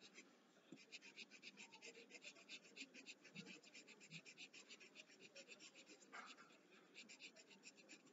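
Pencil shading on paper: faint, quick back-and-forth scratching strokes, several a second, in runs with short pauses between them.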